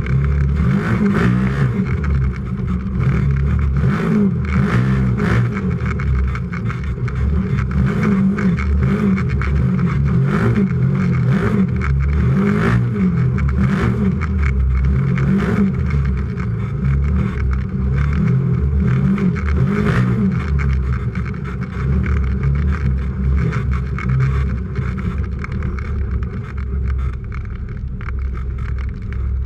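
Race UTV's engine heard from inside the cab, running hard and revving up and down as it drives the course, with repeated sharp knocks through much of it.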